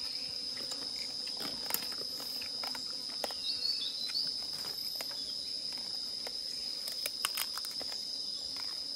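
Steady, high-pitched insect drone, with scattered light clicks and rustles from hands and plates as people eat with their fingers, and a brief chirp about three and a half seconds in.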